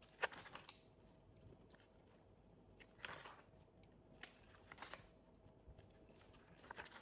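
Near silence with a few faint rustles and taps of paper pages being handled: a sharp tick just after the start, then soft rustles about three seconds in, near five seconds and near the end.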